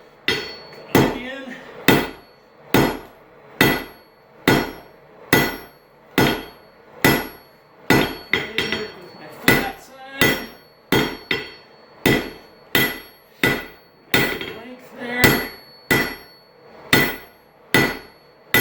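Blacksmith's hand hammer striking a hot railroad spike on an anvil, reducing a fat blob of the steel. The blows come in a steady rhythm a little more than one a second, each with a short metallic ring.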